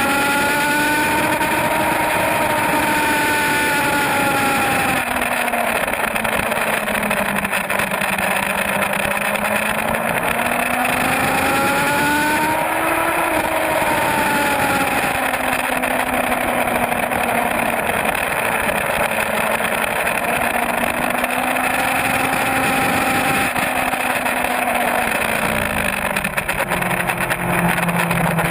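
Suzuki GSX-R inline-four sport-bike engine at speed on a race track, its pitch sinking and climbing slowly with the throttle through the corners, dropping low near the end before starting to climb again. Steady wind rush.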